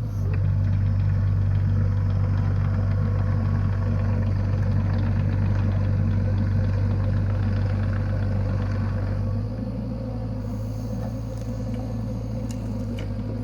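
Cat 305.5E mini excavator's diesel engine running steadily under work, louder for about the first nine seconds and then settling to a lower, even level. A few faint clicks come near the end.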